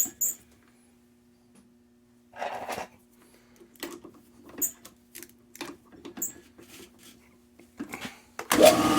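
Scattered clicks and knocks of a bolt and hull being handled and fitted in a drill chuck, over a faint steady hum. Near the end the drill motor starts up loudly, spinning the bolt-mounted hull.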